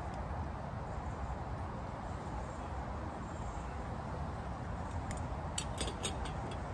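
Steady outdoor ambience with a low rumble, then a quick run of five or so short, sharp clicks about five seconds in, as a steel vacuum flask and a cup are handled.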